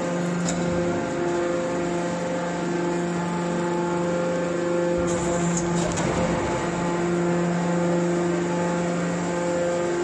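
Hydraulic metal scrap baler's electric motor and hydraulic pump running with a steady hum, turning rougher and noisier for a second or so about five to six seconds in.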